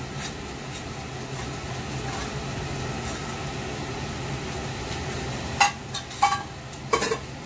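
Steady low hum and hiss of a wok over a lit gas burner while rice is scraped out of a pot into it, then three sharp metal clinks of utensils and pans near the end.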